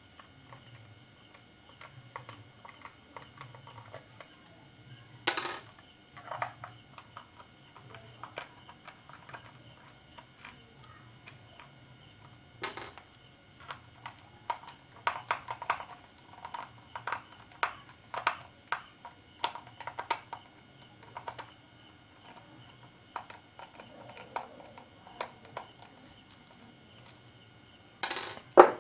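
Scattered clicks and knocks of a digital multimeter's plastic case being handled and taken apart to open it, with a busier run of small clicks in the middle and a few louder knocks, the loudest near the end.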